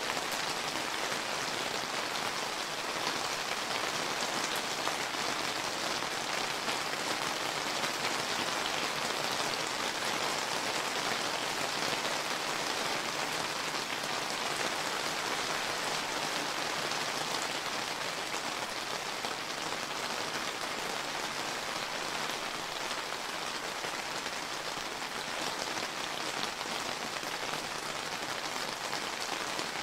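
Steady rain falling, a dense even hiss of countless drops pattering on surfaces, with no thunder.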